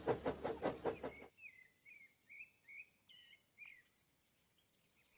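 A rhythmic noise that cuts off abruptly about a second in, then faint birdsong: a string of short chirps rising and falling in pitch, for about three seconds.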